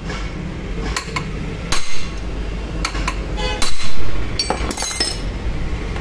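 Hammer blows on a steel rod held against the end of a Hero Pleasure scooter's bent crankshaft: about six sharp metallic clinks with a brief ring, the loudest about two and four seconds in. These are light blows to straighten the bent crankshaft.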